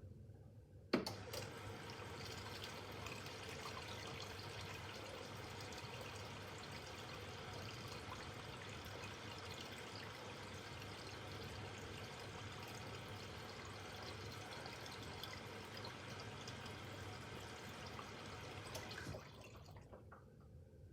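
Miele W5801 WPS washing machine taking in water early in a 30 °C easy-care cycle: a click about a second in, then a steady rush of water into the machine that cuts off near the end.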